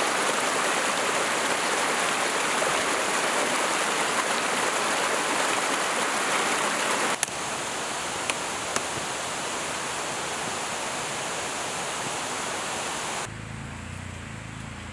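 Mountain stream rushing over boulders: a loud, steady rush of water that cuts off suddenly about halfway through. After it comes a quieter steady hiss with a couple of light clicks.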